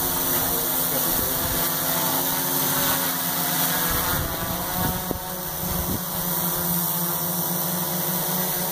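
Multirotor drone's electric motors and propellers humming steadily while it hovers in place.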